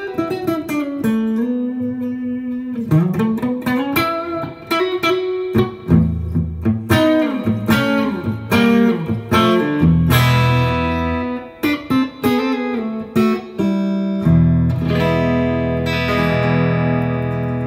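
1981 Aria Pro II CS-350 electric guitar played through an amp: single-note lead lines with string bends, then full chords from about six seconds in, a few short stabbed chords, and a chord left ringing near the end.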